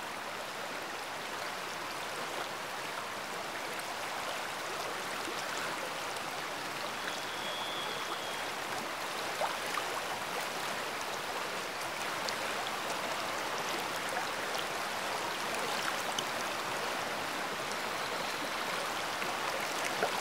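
Steady rushing of running water, even in level, with a few faint clicks and a brief thin high tone about seven seconds in.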